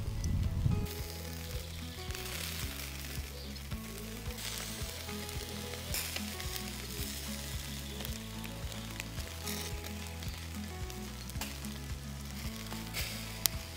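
Marinated catshark pieces sizzling on a barbecue grill, a steady hiss with scattered small crackles, over background music with a low bass line.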